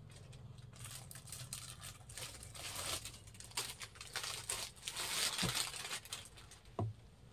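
Silk sarees being handled: rustling and crinkling of the cloth as it is moved and a folded katan silk saree is laid down, with a couple of soft thuds in the second half.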